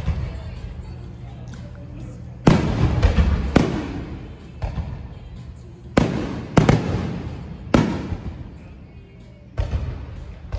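Aerial firework shells bursting: about eight sharp booms at uneven intervals, each trailing off in a rumbling echo.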